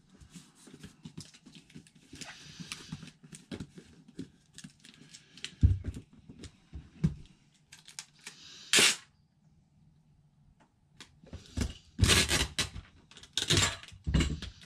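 Packing tape being pulled off a tape gun onto a cardboard box: loud ripping screeches once partway through and twice near the end, between clicks and knocks from handling the box and the tape gun.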